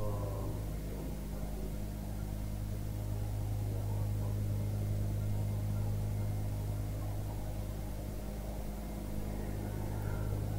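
Steady low electrical hum with faint background hiss from an old broadcast recording.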